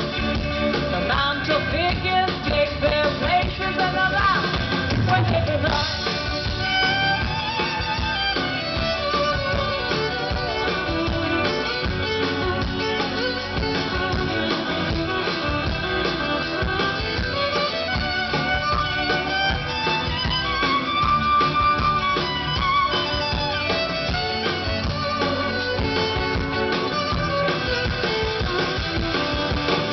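Live rock band playing an instrumental passage, a violin playing melody over electric and acoustic guitars and drums.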